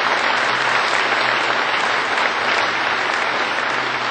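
A large crowd applauding steadily, easing off slightly near the end.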